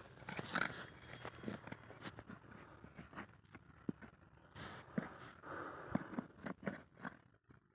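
A small hand tool scraping and digging into loose soil, with irregular crunches and light knocks.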